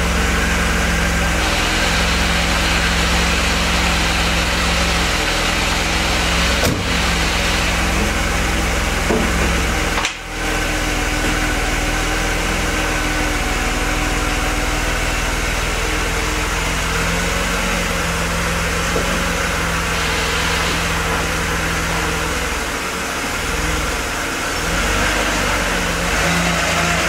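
Mercedes-Benz W124's five-speed manual gearbox making a steady grinding noise while the engine idles, with one brief drop in loudness about ten seconds in. It is a noise that comes on after a cold start, grows stronger the warmer the gearbox gets, and goes away when the clutch is pressed.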